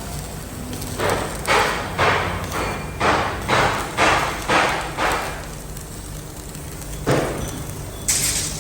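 A run of about nine heavy thuds, roughly two a second, each dying away quickly, then a single further thud. A harsher, hissier noise starts near the end, over a steady low hum.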